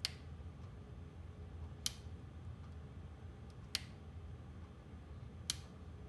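ME-8111 limit switch clicking as its actuator is worked by hand under test: four sharp clicks about two seconds apart, over a faint steady hum.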